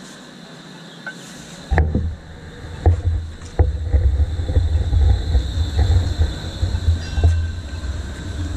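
ION light-rail tram passing close by on street-running track. A heavy low rumble sets in suddenly about two seconds in and runs on, broken by a few sharp clacks from the wheels on the rails.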